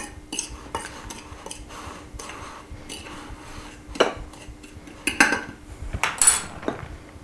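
Metal spoon scraping and tapping against a glass dish while seasoning is stirred into flour, with a few sharper clinks about four, five and six seconds in.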